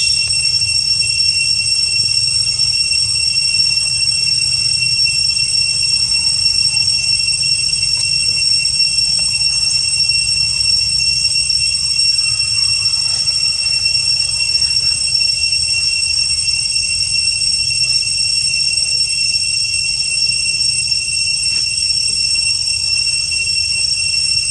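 Steady, high-pitched drone of cicadas: one unchanging tone with a fainter higher overtone, over a low rumble.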